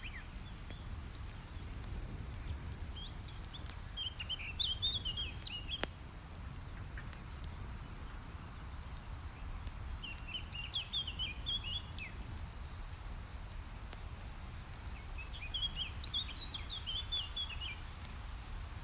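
A songbird sings the same quick warbling phrase of about two seconds three times, several seconds apart. A few sharp crackles of a campfire and a steady low rumble run beneath it.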